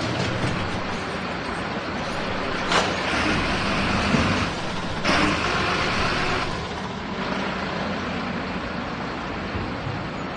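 Garbage truck running steadily while collecting containers, with a sharp clank a little under three seconds in and two spells of hissing, each about a second and a half long, in the middle.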